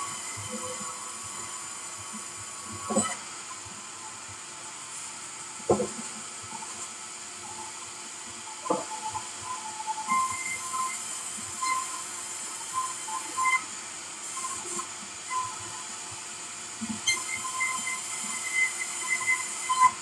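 Sawmill band saw running with a steady hum while logs are fed through it and sawn into slabs. A few sharp wooden knocks come in the first half, and short high-pitched chirps come and go through the second half.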